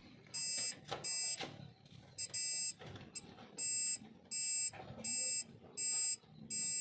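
Truck reversing buzzer beeping repeatedly in short electronic beeps of about half a second each, a sign that the reverse circuit is live and the truck is in reverse gear.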